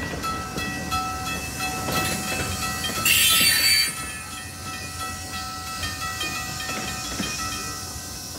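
Freight train cars rolling past, the wheels clicking over rail joints with a steady high squeal. About three seconds in there is a loud hiss lasting just under a second.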